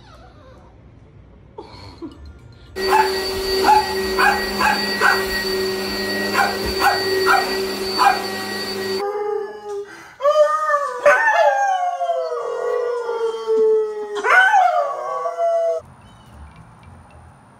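An upright vacuum cleaner runs with a steady hum and whine while a dog barks at it in about nine short yaps. The vacuum stops about nine seconds in, and a dog howls in long calls that rise and fall for about seven seconds.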